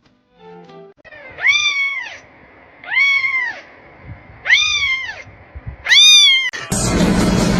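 A cat meowing four times, about a second and a half apart, each meow a drawn-out call that rises and then falls in pitch. Loud music cuts in suddenly near the end.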